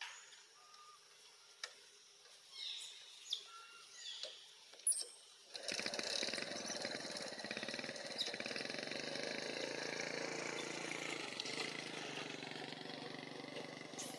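A motor engine running steadily, cutting in abruptly about five and a half seconds in. Before it, a few faint high falling squeaks and small clicks.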